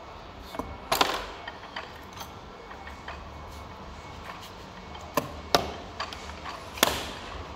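Sharp metallic knocks and clinks of tools and steel parts during gear assembly. There is a loud strike about a second in and a cluster of strikes in the second half, with lighter clicks between and a low steady hum underneath.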